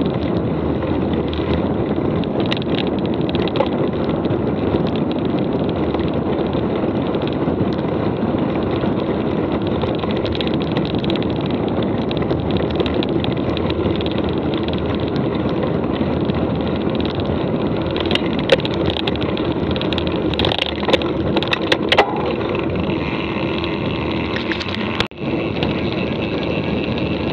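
Mountain bike being ridden on a trail: a steady rushing noise of tyres rolling and wind on the microphone. A handful of sharp clicks and knocks come from bumps about two-thirds of the way through.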